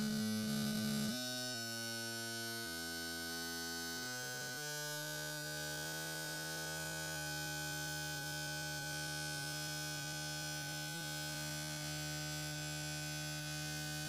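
A steady electronic humming drone of stacked tones, which shifts pitch a few times in the first five seconds and then holds level, with a thin high whine running throughout.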